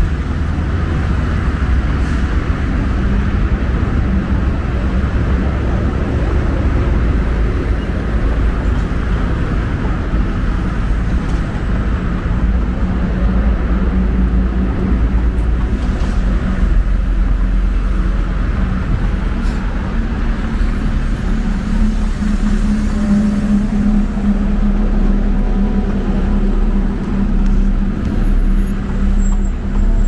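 Road traffic on the seafront road: a steady low rumble of passing vehicles, with a heavy vehicle's engine hum growing louder in the second half and a brief high squeal near the end.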